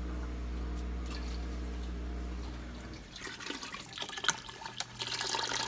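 A steady low hum, then from about three seconds in chicken stock pours into a pot of water, splashing with small irregular clicks that grow stronger near the end.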